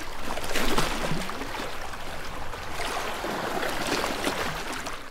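Steady rushing water with short calls that glide up and down in pitch mixed through it. The sound cuts off sharply at the end.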